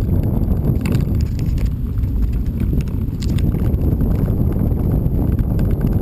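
A vehicle rumbling along a loose gravel road, with its tyres on the stones and wind buffeting the microphone; a few faint ticks come through about a second and three seconds in.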